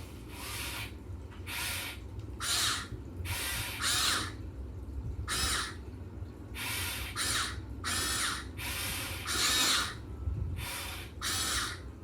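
Huina 1580 RC excavator's electric motors and metal gearboxes whirring in about a dozen short, separate bursts, each under a second, with the pitch wavering within a burst.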